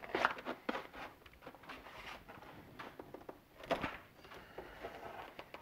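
Green plastic case of a K2 Energy LiFePO4 battery being pried open at its heat-softened glued seam. The lid tears away with a series of sharp cracks and snaps, strongest just after the start and again about four seconds in.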